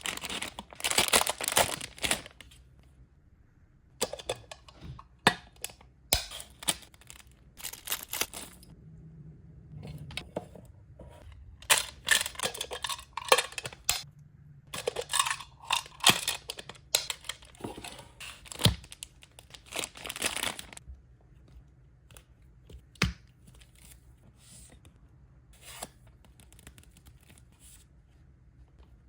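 Packaging being torn open and crinkled by hand in irregular bursts, with scattered light clicks and knocks; quieter over the last third.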